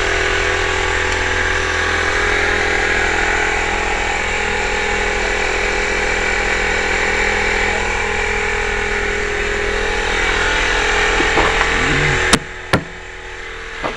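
Metal lathe running with a steady hum; near the end two sharp clicks, and most of the running noise stops suddenly.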